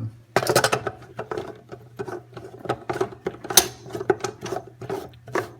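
Plastic parts of a pool filter's air relief valve assembly clicking and rattling in quick, irregular strokes as they are handled and fitted together, with one sharper click about three and a half seconds in.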